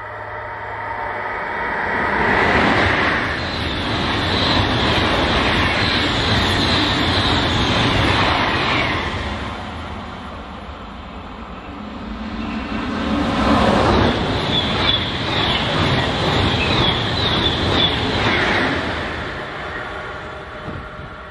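Two fast electric passenger trains pass by one after the other, each a loud rushing of wheels on rail: the first swells up about two seconds in and fades after about nine seconds, the second bursts in suddenly about thirteen seconds in and fades near the end.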